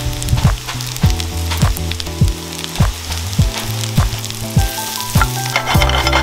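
Mushrooms sizzling in hot oil in a frying pan over high heat. Background music with a steady beat plays over it.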